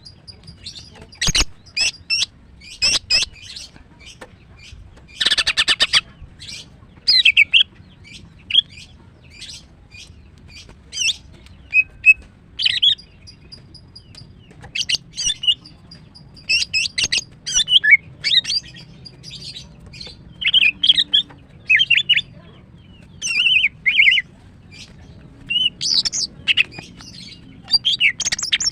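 Female greater green leafbird (cucak ijo) singing in quick, high-pitched bursts of chirps and whistles, with short pauses between phrases.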